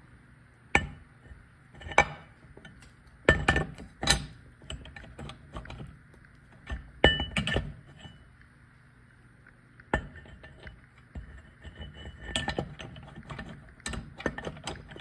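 Metal clinks and knocks from an outboard flywheel being handled and fitted over the crankshaft of a 1957 Mercury Mark 6 powerhead. The strikes are sharp and come at irregular intervals, a few of them ringing briefly.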